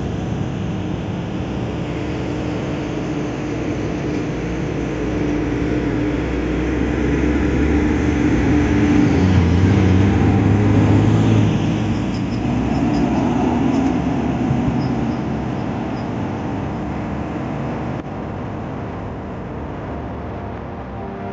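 Road traffic, with a heavy vehicle's engine growing louder as it passes close about halfway through, then fading.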